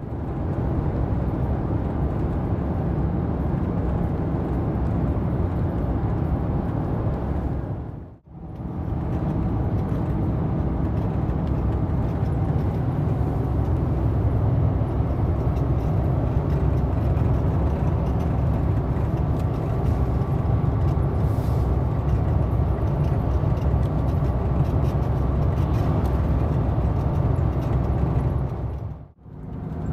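Steady engine and road noise heard inside the cab of a Mercedes-Benz Actros truck cruising on the highway, mostly a low rumble. It drops out for a moment about eight seconds in and again near the end.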